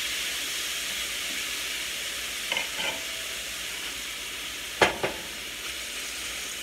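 Thin strips of raw steak sizzling in hot oil in a stainless steel skillet, a steady hiss that eases a little as the meat is stirred with a wooden spoon. A light clatter comes about two and a half seconds in, then two sharp knocks of the spoon on the cookware near the five-second mark.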